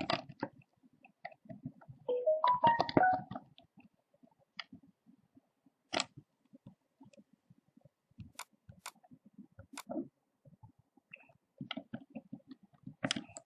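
Scattered sharp clicks of a computer mouse and keyboard keys at irregular spacing, with a brief pitched sound of about a second starting about two seconds in, the loudest part.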